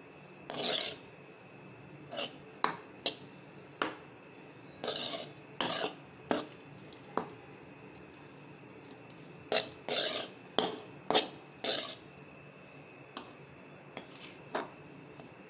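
A spatula scraping and knocking against a metal kadai as cooked mint rice is stirred and tossed, in irregular strokes: some sharp clinks and some longer scrapes.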